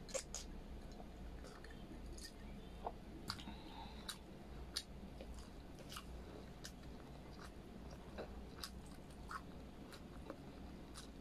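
Close mouth sounds of a person chewing braised pork humba and rice, with irregular wet clicks and smacks scattered through the chewing.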